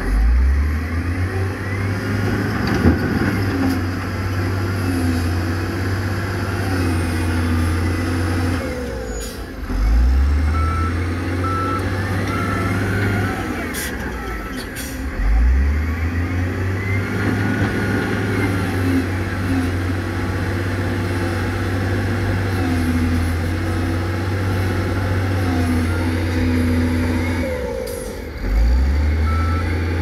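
Heavy diesel engines of dump trucks and a wheel loader working, revving up several times. A reversing alarm beeps in short pulses about ten seconds in and again near the end.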